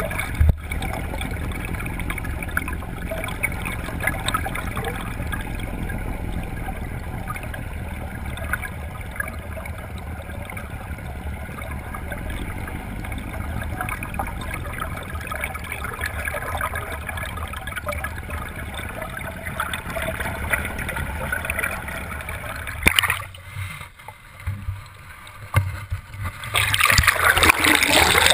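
Water rushing and gurgling around a camera held on a fishing net off a moving boat, over a steady low rumble from the boat. About 23 s in a knock is followed by a quieter, muffled stretch, then a loud rush of water builds near the end.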